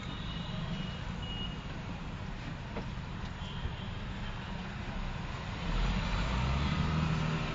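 Cabin noise of a moving city bus: steady engine and road rumble, with a much louder, deeper engine rumble coming in about three-quarters of the way through.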